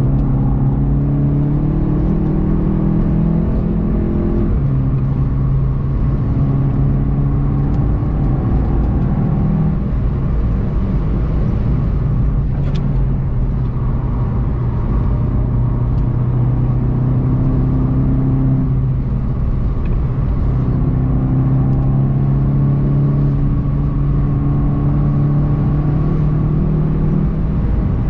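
VW Golf 7 GTI TCR's turbocharged four-cylinder engine under hard acceleration, heard from inside the cabin. Its pitch climbs and drops back at upshifts, about four seconds in and again near ten seconds, then eases off briefly past the middle before climbing again.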